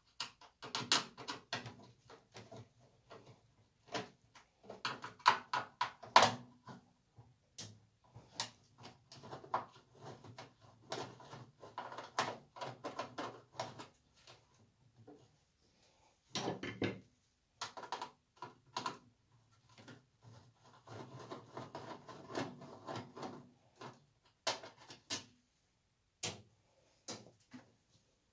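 The sheet-metal casing of a microwave oven being handled and worked on with a screwdriver: irregular metallic clicks, taps and rattles in bunches, with short pauses between them.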